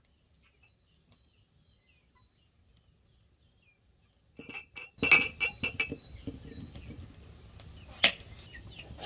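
Near silence for about four seconds, then a quick run of clinks and knocks of glassware or dishes being handled, with one more sharp clink near the end.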